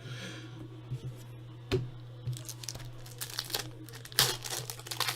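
Trading card pack wrappers being crinkled and torn open, a rapid crackling that builds from about halfway through, with a single light knock a little before.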